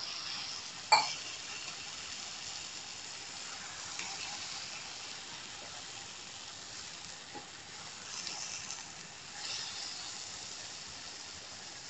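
Shredded cabbage and dal sizzling and hissing in a hot non-stick pan with a little water just added, a spatula stirring through it. A sharp knock about a second in.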